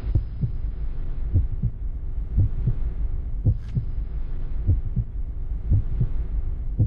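Heartbeat sound effect: low paired thumps, lub-dub, about once a second, over a steady low drone.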